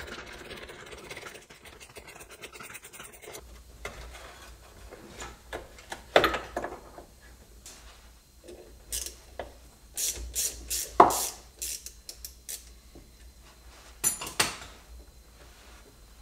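Hand tools working the gear shifter's mounting bolts under a car: scraping and rubbing at first, then scattered metallic clicks and clinks of a socket wrench and extension, the loudest clink about two-thirds of the way through.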